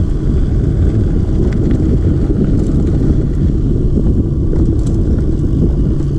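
Mountain bike riding over a dirt trail: steady loud rumble of tyres and frame, with wind buffeting the camera microphone and a few sharp rattling clicks.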